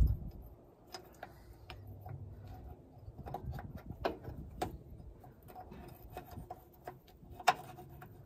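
A low thump at the start, then scattered light clicks and taps as a new oil line's hose fitting is handled and worked onto a metal housing on a diesel engine, with one sharper click near the end.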